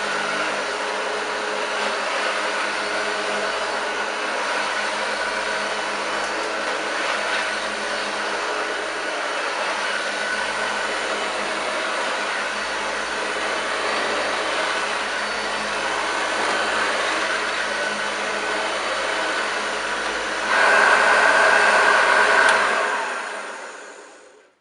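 1981 Hoover Junior U2190 hardbag upright vacuum cleaner running on carpet with no dust bag fitted, a steady motor and fan sound. It gets louder about twenty seconds in, then dies away near the end as the motor stops.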